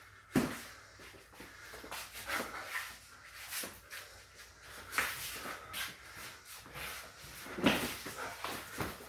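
Kickboxing sparring: gloved punches and kicks landing as sharp thuds at irregular intervals, three of them loud, the loudest a little before the end, with lighter taps and scuffs between.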